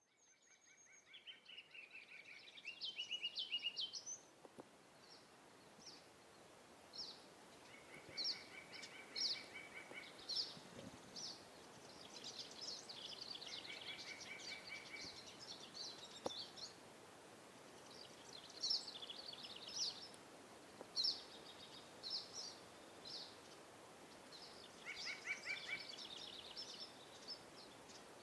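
Several songbirds singing and calling, with rapid trills and repeated high chirps over a faint steady outdoor hiss; the sound fades in at the start.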